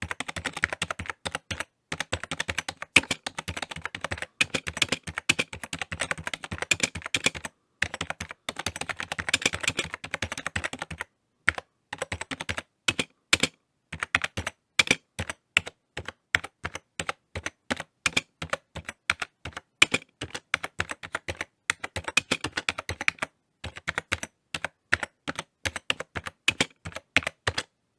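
Typing on a computer keyboard: fast runs of key clicks with short pauses, turning to slower, more spaced keystrokes after the first ten seconds or so.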